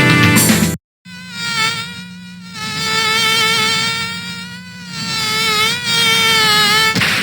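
Samsung SGH-E870 ringtones: a guitar tune cuts off under a second in. After a brief gap, the next ringtone plays one long, buzzy synthesized note with a slightly wavering pitch over a low steady hum. It swells and eases in loudness a couple of times, then stops near the end.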